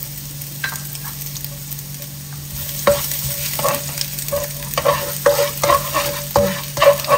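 Chopped garlic sizzling in hot oil in a nonstick wok. About three seconds in, a spatula starts stirring it, scraping repeatedly against the pan over the sizzle.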